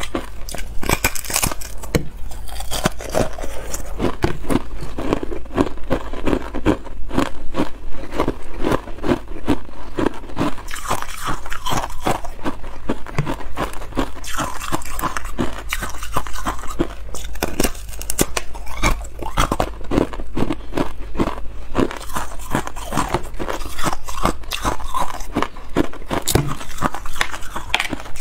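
Thin balloon ice being bitten and chewed, with dense, irregular crunching and crackling of brittle ice throughout.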